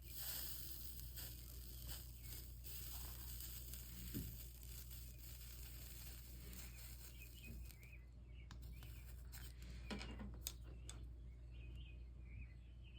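Faint sizzling hiss of a soldering iron melting solder and flux along a stained glass seam, starting suddenly and dying away after about seven seconds, followed by a few light clicks. Birds chirp in the background.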